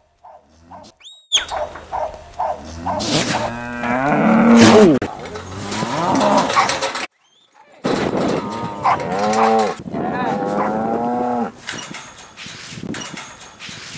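Rank cattle bellowing as border collies face them down in a pen: a long, wavering bellow a few seconds in, the loudest sound, then another long bellow about eight seconds in.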